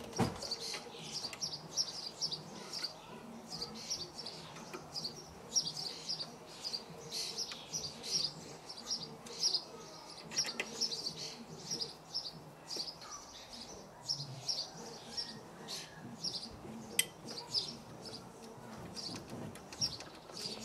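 Small birds chirping over and over, about twice a second, with a few sharp clicks from hand tools working on the motorcycle frame.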